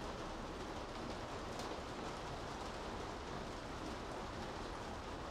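Steady rain falling on city streets, an even, unbroken hiss, with one sharper drop or tick about a second and a half in.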